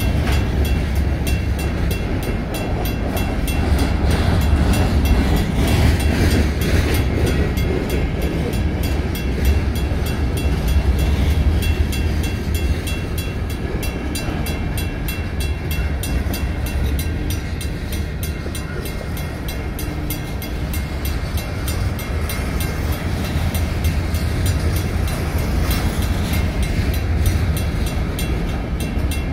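Empty steel rock hopper cars of a freight train rolling by, with a steady heavy low rumble of wheels on rail. Above it the crossing signal's mechanical bell keeps up rapid, even strokes.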